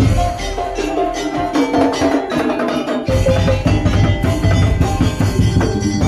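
Madurese tong-tong (ul daul) percussion ensemble playing: fast wooden knocking under a melody of pitched percussion notes, with a heavy low drum part coming in about halfway through.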